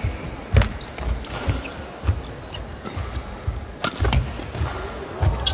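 Badminton rally: several sharp cracks of rackets striking the shuttlecock, one of them a jumping overhead smash, with players' shoes thudding and squeaking on the court mat.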